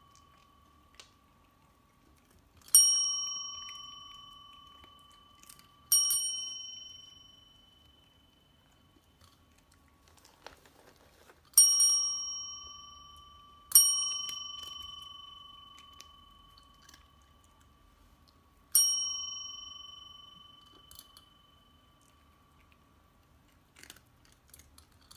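Chrome desk bell (service bell) dinged five times at uneven intervals. Each ding is a clear bright ring that fades away over a few seconds.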